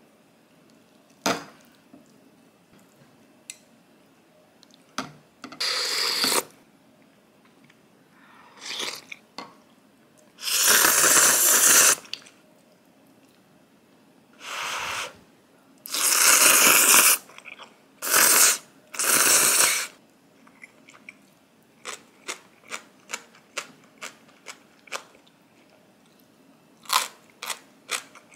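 Eating spicy ramen: several long slurps of noodles, then steady chewing with short crunches about twice a second. The noodles are cooked still firm, giving the crunch.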